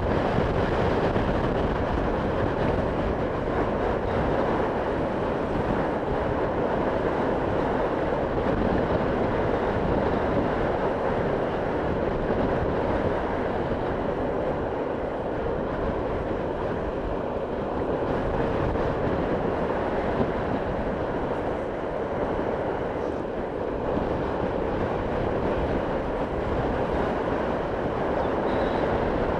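Motorcycle cruising at a steady speed: an even rush of wind and road noise over the running engine, with no revving or gear changes.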